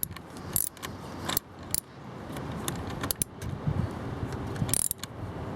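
Metallic clinks and taps of a wrench working a car battery terminal clamp as it is fitted back onto the battery post and tightened. There are several separate sharp clinks over a low background rumble.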